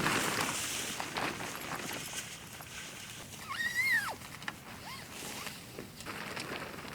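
Rustling noise, and about three and a half seconds in a single high animal call that rises and then falls away, followed by two short, fainter calls.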